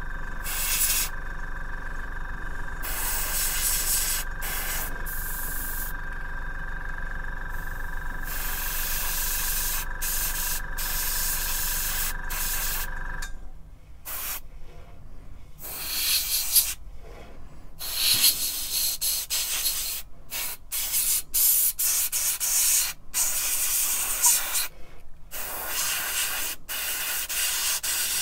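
Airbrush spraying paint, its hiss of air switched on and off in short bursts by the trigger. A steady hum runs underneath and stops abruptly about halfway through.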